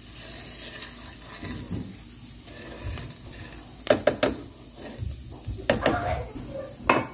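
Wooden spatula stirring dry popcorn kernels in melted butter in a nonstick pot: kernels rattling and scraping across the pan. Sharp clicks and knocks about three, four and six seconds in, and a louder one near the end.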